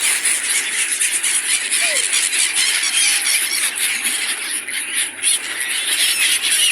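A flock of birds calling together, a dense chatter of many short overlapping chirps that never lets up.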